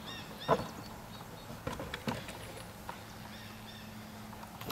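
A Great Dane's paws knocking on the boards of a wooden agility A-frame as it goes over. There are a few scattered thumps, the loudest about half a second in.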